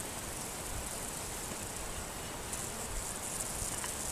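Steady insect sound: a high-pitched chirring buzz that grows stronger about two and a half seconds in.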